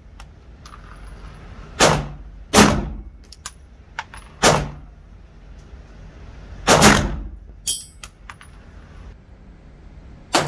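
Glock 17 9mm pistol fired in slow aimed single shots: five sharp reports at uneven spacing, each with a short echo, the last one near the end. Lighter clicks and a brief metallic clatter come between the shots.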